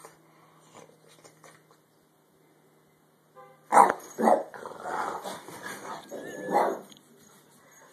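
A Boston terrier startles awake and barks sharply twice about four seconds in, then keeps barking as it scrambles on the duvet for about three more seconds.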